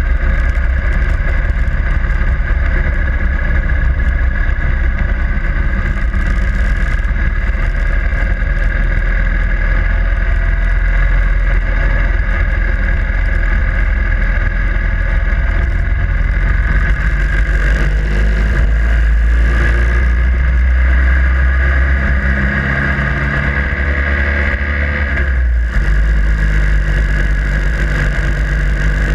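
Harley-Davidson Sportster Iron 883's air-cooled V-twin engine running on the move, its note shifting in pitch for several seconds late on.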